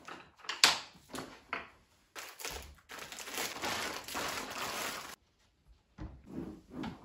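Handling noises: a few short knocks and rustles, then about three seconds of steady crinkling that cuts off abruptly, followed by a few more brief rustles.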